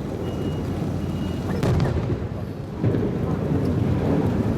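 Aerial fireworks bursting: a continuous rumble of booms, with a sharp bang about a second and a half in and another loud burst near three seconds.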